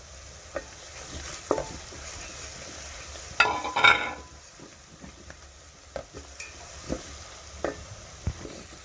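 Onions and spices frying in oil in a pot with a low steady sizzle, while a spoon stirs and scrapes against the pot with scattered knocks. The loudest scraping comes about three and a half seconds in.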